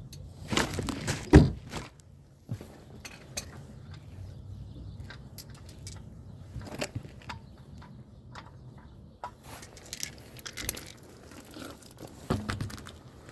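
Irregular clicks, taps and knocks of hand work on the car, with one loud knock about a second in and scattered lighter clicks after.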